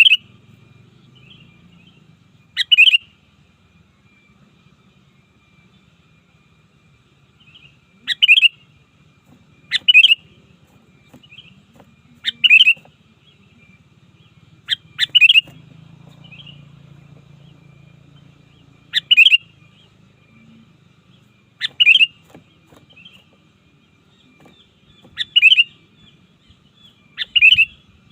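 Sooty-headed bulbul (kutilang) giving about ten short, loud calls, repeated every few seconds, with fainter chirps in between.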